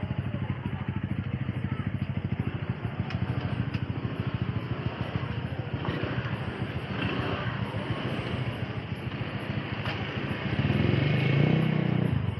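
Motor scooter engines running close by with a fast low pulsing, amid voices of people around. About ten and a half seconds in, a louder low sound comes in.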